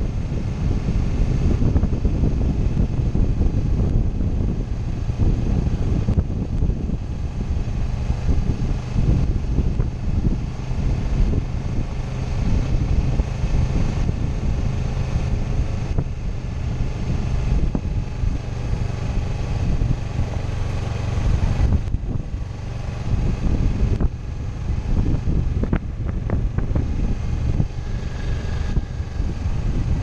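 Sport motorcycle riding at steady speed on a gravel road, its engine a steady drone under wind rushing over the helmet camera's microphone. A few small clicks near the end.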